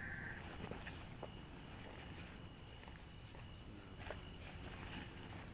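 Crickets chirping in a high, rapid, even pulse, with a few soft clicks.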